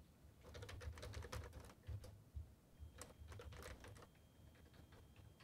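Faint typing on a computer keyboard: two short runs of keystrokes with a pause between them.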